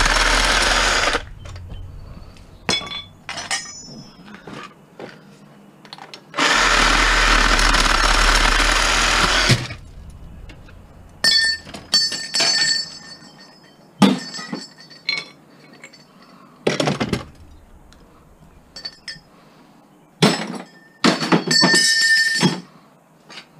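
A handheld power tool cutting brass fittings off copper pipe, running in two loud steady bursts, one at the start and one of about three seconds near the middle. In between and after, pieces of metal clink and clatter against the scrap in the bucket, some with a short ring.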